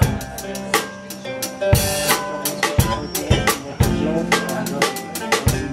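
Instrumental band passage: a Pearl drum kit is played in a steady beat of bass-drum, snare and cymbal hits over acoustic guitar chords.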